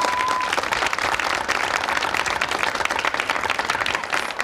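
Studio audience applauding in a dense, steady patter that fades out just after the end. Near the start there is a brief steady whistle of about half a second.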